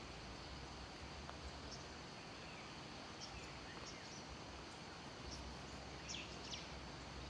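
Faint natural outdoor ambience: a steady background hiss and low hum with a thin, high, steady tone, and scattered short bird chirps, a few louder ones about six seconds in.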